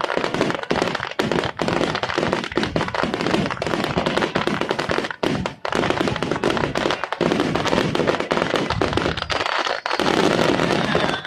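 Aerial firework shells bursting in a rapid, continuous finale barrage, booms and crackling overlapping densely, which drops away at the very end.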